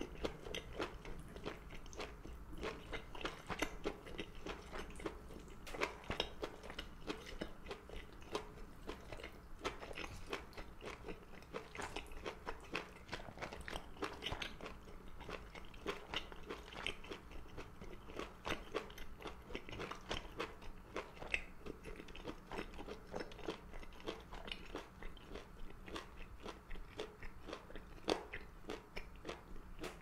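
Close-miked chewing and biting of food: a dense, continuous run of small wet clicks and crunches.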